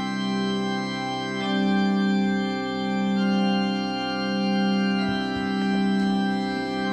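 Slow organ music in a solemn funeral style: held chords that change every couple of seconds, swelling and fading slowly.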